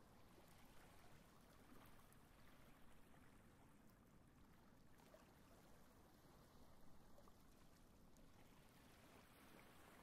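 Near silence: a faint, steady wash of small waves lapping on a sandy beach, with no bird calls.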